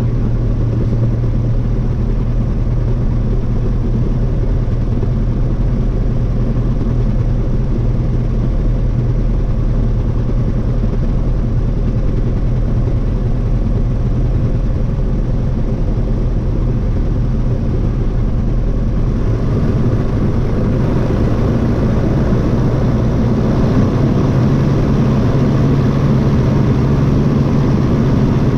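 Piston engine of a Cavalier 102.5 light airplane running steadily, picking up somewhat and growing a little louder about 20 seconds in.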